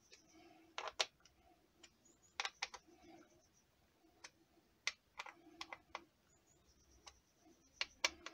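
Light, irregular clicks and ticks, a dozen or so in small clusters, as small screws are turned in by finger on the housing of a Mercedes A-Class W168 engine control unit with its integrated air mass flow sensor.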